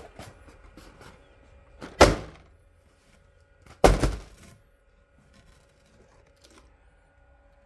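Two loud, heavy thuds about two seconds apart, the first swelling briefly just before it hits, each dying away within half a second; a faint steady hum remains afterwards.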